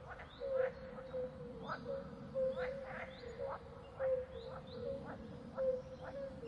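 Chorus of animal calls: short, quick rising chirps repeated two to three times a second over a steady hum.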